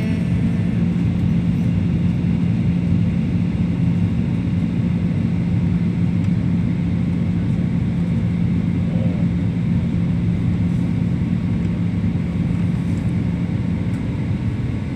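Airliner cabin noise in flight: a steady drone of engines and airflow with a constant low hum.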